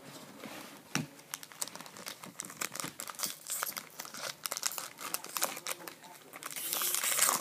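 Hockey card pack wrapper crinkling as it is handled, with many quick crackles, then a louder tearing sound near the end as the pack is ripped open.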